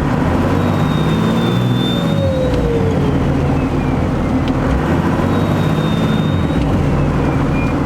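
12-valve Cummins inline-six diesel pulling under throttle, with its compound turbos spooled up. A high turbo whistle holds steady, then slides slowly down in pitch, while the engine note drops around two to three seconds in.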